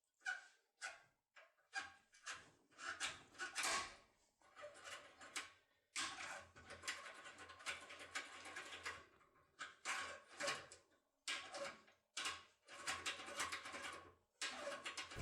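Short metallic scrapes and clicks of a locksmith's forced-opening tool being rocked back and forth in an ISEO R500 lock cylinder, breaking the pins; the strokes come a few times a second at first, then run into longer rough grinding stretches around the middle.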